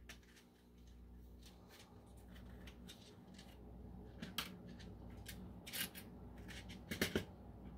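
Faint rustling and light clicks of a small cardboard primer box being handled and opened, with a few sharper ticks in the second half.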